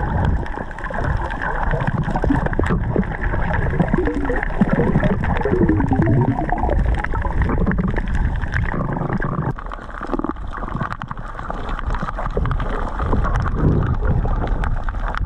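Muffled underwater sound from a submerged microphone over a coral reef: a dense low rumble of moving water, with gurgling and many scattered small clicks.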